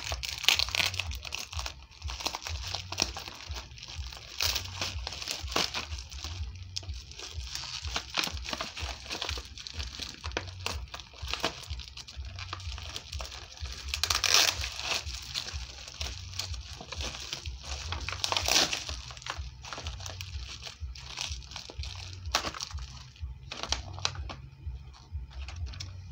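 Plastic packaging (bubble wrap and a plastic courier bag) crinkling and rustling as it is handled and pulled apart, in irregular crackles with a couple of louder bursts about halfway and about two-thirds of the way through.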